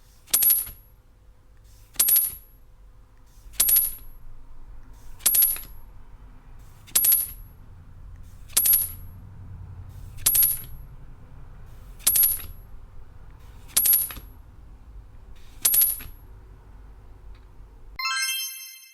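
A bright metallic ding repeated about ten times at a steady pace, roughly every second and a half, each hit ringing briefly. Near the end a different chime of several stacked notes sounds.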